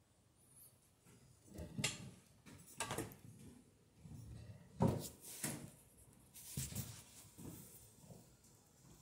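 A handful of scattered knocks and rustles from handling cable and wire nuts at a plastic electrical box, the loudest knock about halfway through.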